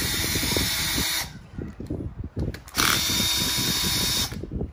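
Cordless drill-driver running in two short bursts, each about a second and a half long with a pause between, backing out the screw of a circuit-breaker terminal to open it for a neutral wire.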